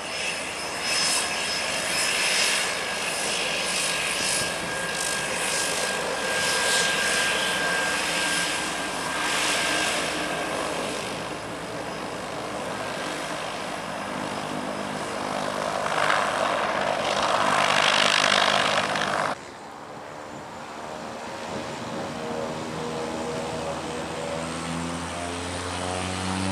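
Loud rushing aircraft engine noise with a steady high whine, cutting off abruptly about two-thirds of the way in. The humming drone of a Cessna 208B Grand Caravan's single turboprop engine and propeller is left, rising in pitch near the end as power comes up for the takeoff roll.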